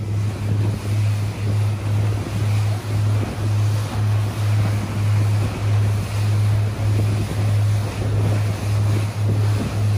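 Motorboat running at speed: rushing water from the hull and wake, with wind buffeting the microphone, over a low hum that swells and dips about twice a second.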